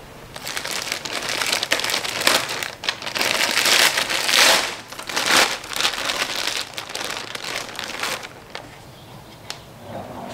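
Thin plastic bread bag crinkling and rustling as it is opened and a hand reaches in for slices, for about eight seconds. This is followed by a few light clicks near the end.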